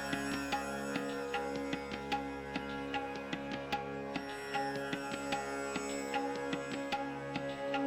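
Background music: plucked strings over a steady held drone, with quick percussive strokes.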